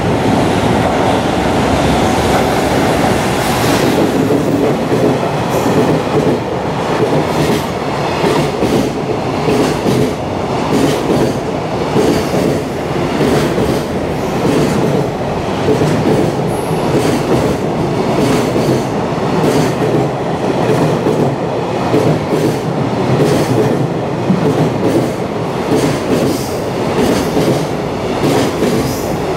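Long container freight train passing through a station at speed. The wagons' wheels clatter over the rail joints in a continuous rhythm over a loud, steady rush of running noise.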